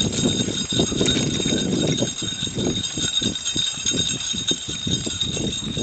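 Wheeled dog cart on spoked bicycle wheels rolling over asphalt: a low rumble from the tyres with an irregular clatter of rattling frame and shafts, and a thin steady high whine over it.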